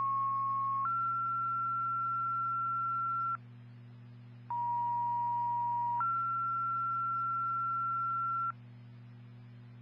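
Two-tone sequential fire dispatch pager tones over a radio, paging two fire stations: a tone steps up to a longer, higher tone, then after about a second's pause a second pair, a lower tone stepping up to a long higher one. A steady low hum runs underneath.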